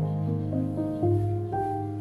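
Soft, calm background music with a gentle piano-like melody, its notes changing about every half second.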